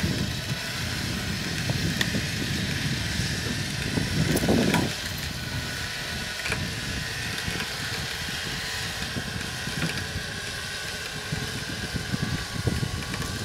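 A vehicle engine running steadily under load, pulling the sunken pickup by cable up onto the ice, with a brief louder rumble about four seconds in.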